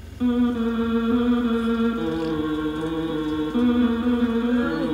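Soundtrack music starting abruptly: long held notes that sound like chanting, each chord sustained for a second or two before stepping to a new pitch.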